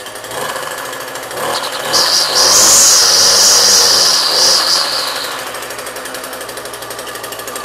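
McCulloch Silver Eagle two-stroke string trimmer engine, running after a flooded cold start, revved up from idle about half a second in, held high for a few seconds so the clutch spins the line head, then let back down to idle about five seconds in.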